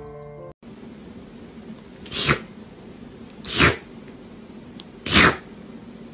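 A cat sneezing three times, each a short, sharp burst, about a second and a half apart.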